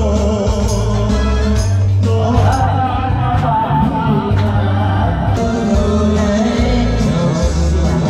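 Karaoke backing track with strong bass and a man singing along into a microphone.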